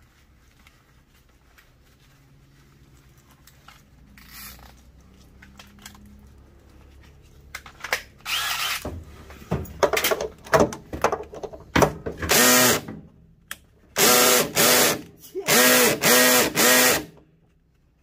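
Cordless drill with a socket backing out the bolts on a Samsung front-load washer's direct-drive motor stator. After a quieter start, about halfway in it runs in short trigger bursts, then in several longer pulls of about a second each, the motor whining up to speed at each pull.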